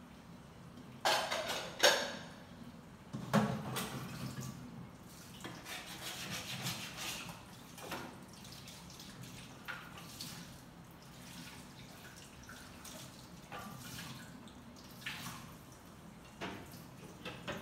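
Dishes being washed by hand at a kitchen sink: water splashing and dripping, with ceramic plates knocking and clinking against each other and the sink. The loudest clatters come in the first few seconds.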